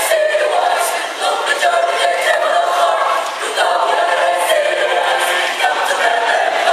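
Mixed choir of women's and men's voices singing in parts, holding sustained chords.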